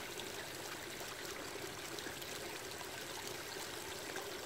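Water running steadily through a narrow channel cut in a mud bank, pouring through a bamboo cage fish trap.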